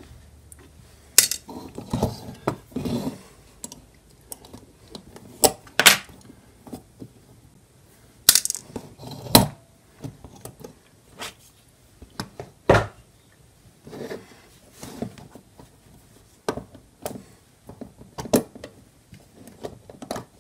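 Brass plates, pillars and wheels of an antique Ansonia clock movement clinking and clacking as the movement is taken apart by hand: an irregular string of small metallic clicks and knocks, a few much louder than the rest.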